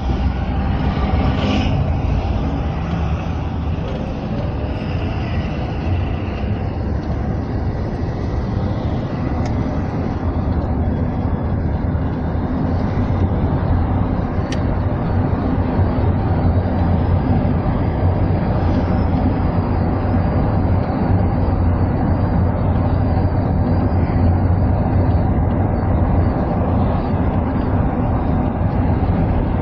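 Steady engine and tyre noise of a vehicle being driven, heard from inside the cabin as a continuous low rumble.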